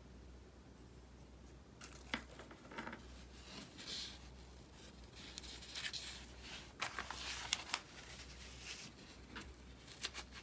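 A sheet of painting paper being handled and turned around on a felt mat: rustling and crackling in short spells with a few sharp clicks, starting about two seconds in.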